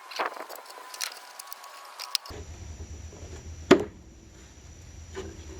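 Scattered small clicks and knocks of hands and tools working on a wooden dollhouse while glue goes into a pried-open joint. The sharpest knock comes a little past halfway.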